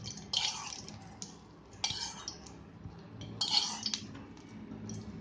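A spoon scrapes a cooking pan three times in short strokes as the hot-oil tempering of mustard seeds and dried red chillies is tipped into a bowl of onion chutney. A faint low hum runs underneath.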